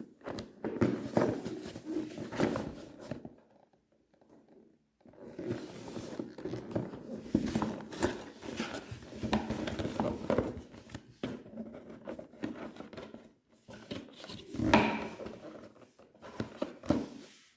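Unboxing handling noise: irregular rustling, scraping and clicks of a phone box, its packaging and its parts being handled, with a pause of about two seconds near the start and a louder rustle a little before the end.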